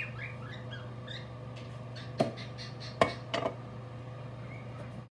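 Metal serving utensil clinking against a ceramic pasta bowl: three sharp clinks, one a little over two seconds in and two close together around three seconds in, over a steady low hum. A few short chirps sound at the very start.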